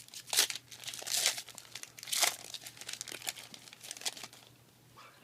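Foil Yu-Gi-Oh booster pack wrapper crinkling and being torn open by hand, in several short crackling bursts that die away about four seconds in.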